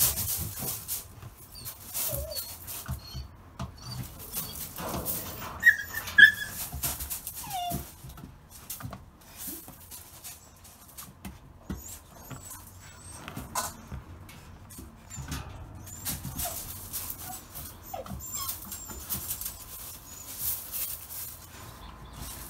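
Dutch shepherd puppies scrambling over and through a stack of car tyres, with steady scuffing and scratching of paws and claws on rubber and gravel. A few short, high puppy whines break in, the loudest about six seconds in.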